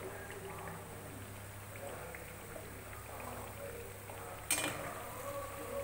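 Nimki frying in hot oil in a wok, with a faint sizzle. A steel slotted spoon clinks sharply once against the pan about four and a half seconds in, as the fried pieces are lifted out.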